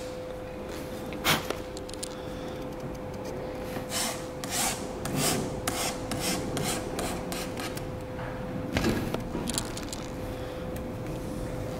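A small hand file rasping along the top edge of a car's side window glass in a series of short strokes, shaving off the overhanging edge of freshly applied window tint film. A steady hum runs underneath.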